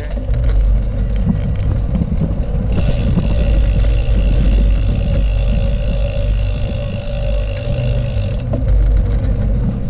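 Wind buffeting a GoPro's microphone on a moving bicycle, with a heavy steady rumble from riding over asphalt. A high steady whine comes in about three seconds in and stops about eight seconds in.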